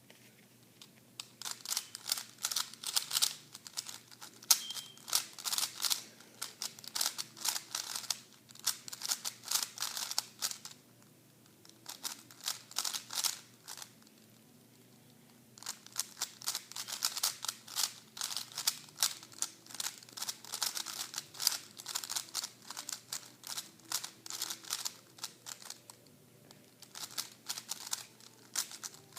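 3x3 Rubik's speed cube being turned fast by hand: rapid plastic clicking and clacking of the layers in long bursts, broken by a few seconds' pause near the middle.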